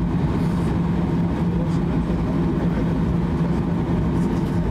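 Cabin noise of a Boeing 737-800 taxiing: its CFM56-7B engines at taxi power give a steady hum with a constant low tone over a rumble.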